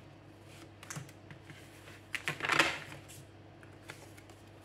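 Oracle cards being handled on a tabletop: light clicks and taps as cards are picked from a spread deck and laid down, with a louder brief rustle a little over two seconds in.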